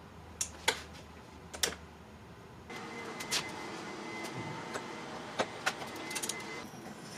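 Sharp metal clinks of steel tongs and a hot steel chopper blade being pulled from an electric heat-treat oven and clamped in a bench vise. From about three seconds in, a steady high whine and hiss run under the clinks.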